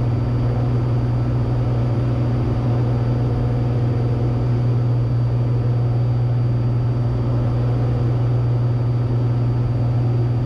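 Cessna 182T's six-cylinder Lycoming IO-540 engine and propeller running steadily in flight, a constant low drone heard from inside the cabin, with a faint high steady whine under it.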